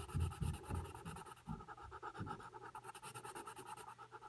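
Graphite pencil shading on paper: faint scratching of short back-and-forth strokes. The strokes come most clearly in the first couple of seconds, then grow fainter.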